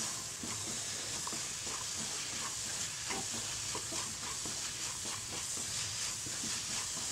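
Cauliflower and peas frying in a non-stick pan, sizzling with a steady hiss while a wooden spatula stirs the masala through them in frequent light scraping strokes.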